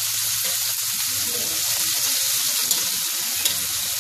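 Shrimp sizzling steadily as they fry in butter in a metal wok, stirred with a metal spatula. Twice near the end there is a sharp click of the spatula against the wok.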